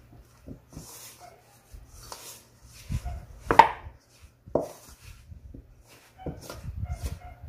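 Wooden spoon stirring shaggy bread dough in a stainless steel bowl, knocking and scraping against the metal at an irregular pace, with the sharpest knock about three and a half seconds in and a quick run of knocks near the end.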